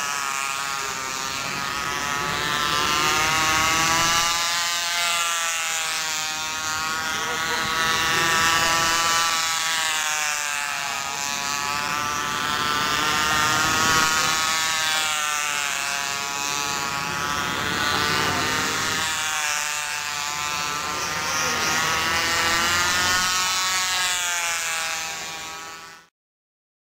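Radio-controlled model airplane's small engine buzzing at high revs as the plane flies overhead, its pitch rising and falling and its level swelling and fading every few seconds as it passes back and forth. The sound cuts off suddenly near the end.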